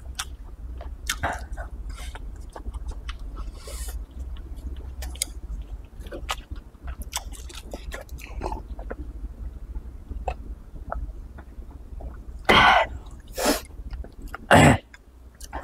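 Close-up chewing of chewy stir-fried dried tofu strips and rice, with many small mouth clicks. Three loud, short noises come close together near the end.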